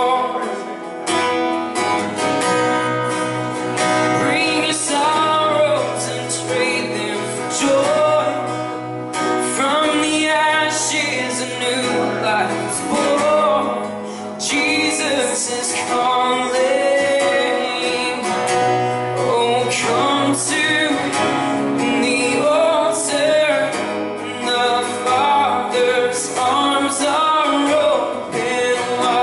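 Live worship song: acoustic guitar strummed steadily, with a man and a woman singing.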